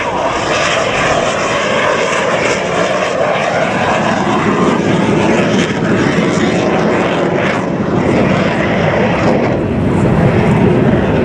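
Jet noise of a single Aermacchi MB-339 jet trainer's Rolls-Royce Viper turbojet during an aerobatic display pass: a loud, steady rushing sound that swells a little near the end as the jet comes in low.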